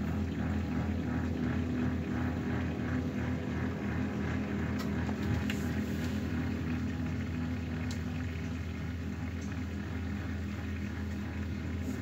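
Kenwood dishwasher running its Rapid wash: a steady motor and pump hum under water spraying and sloshing inside the tub, pulsing about four times a second for the first few seconds.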